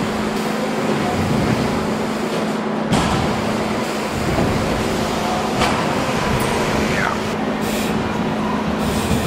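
BMX bike tyres rolling over wooden skatepark ramps, a steady rumble with a few sharp knocks, over a constant hum in the hall.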